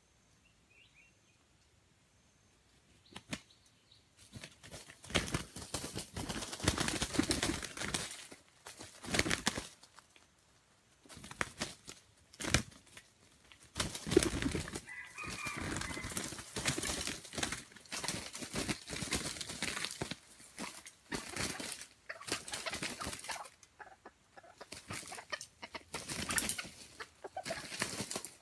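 A red junglefowl rooster beating its wings and thrashing through dry leaf litter in repeated bursts, starting about three seconds in. This is a wild bird struggling to get free of a ground trap.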